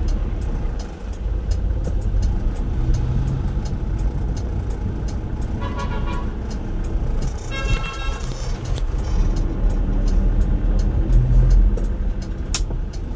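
Traffic heard from inside a car: a steady low engine and road rumble, with two short vehicle horn toots, one about six seconds in and a slightly longer one about a second and a half later.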